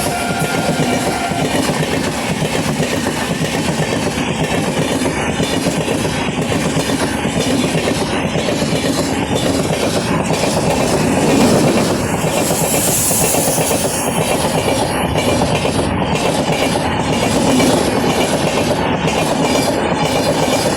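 Electric-hauled express train's coaches running past at speed: steady rumble with rhythmic wheel clacks over the rail joints. The tail of a shrill locomotive horn fades out about a second in.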